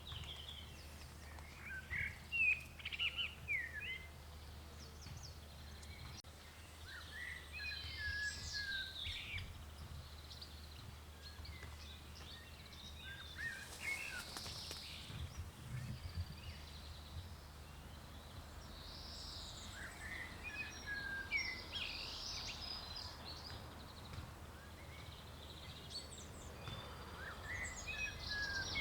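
Birds chirping and singing in short flurries every few seconds, over a steady low hum.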